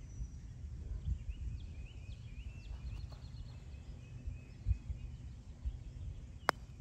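Birds chirping over a low wind rumble on the microphone, then one sharp click near the end as a putter strikes a golf ball.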